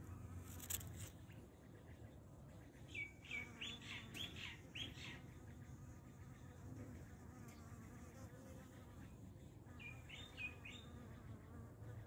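A bee buzzing faintly around flowering amaranth, with two short runs of bird chirps: about five quick notes around three to five seconds in and three more near ten seconds. There is a single click just under a second in.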